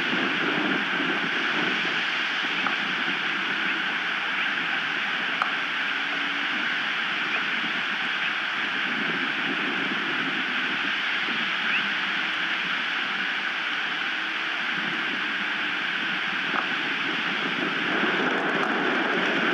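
Strong wind blowing over an outdoor nest-cam microphone: a steady rushing hiss with gusty low buffeting that rises and falls, growing stronger near the end, and a few faint ticks.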